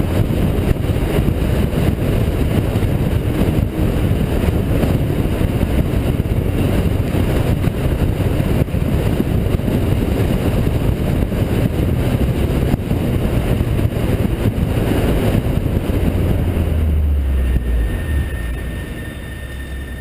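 Honda Integra DC2 engine running with road and wind noise at cruising speed, heard from inside the car. The sound goes quieter near the end.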